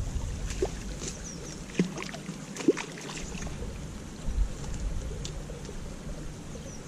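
Shallow stream water splashing and slapping at the bank as a hooked chub thrashes at the surface close in, with scattered sharp splashes and a steady trickle. Wind buffets the microphone at the start, and a few faint bird chirps come through.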